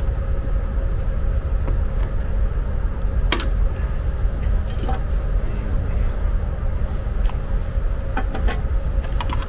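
A steady low rumble and faint hum, with a few sharp clicks and light knocks as a screwdriver and gloved hands work at a toilet waste-tank level sensor under a passenger carriage: one clear click about three seconds in and a few more near the end.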